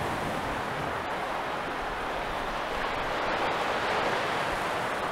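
Steady rush of churning water surging out of a Panama Canal lock's outlet as the lock is emptied.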